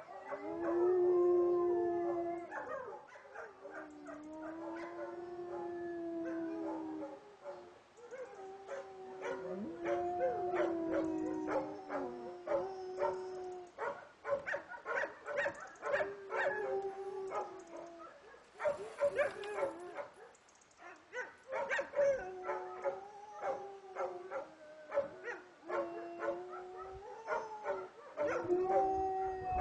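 Czechoslovakian wolfdogs howling together: long drawn-out howls that rise and fall and overlap at different pitches, one answered by a second dog further off. From about halfway on, short sharp yips and barks break in among the howls.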